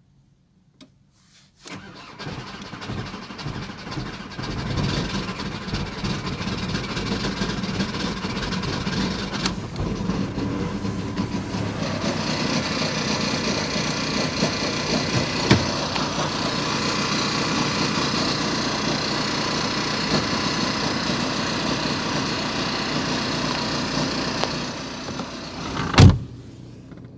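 VW Golf 4 1.9 TDI (ALH) four-cylinder diesel starting from cold about a second and a half in, then running steadily. A single loud thump near the end.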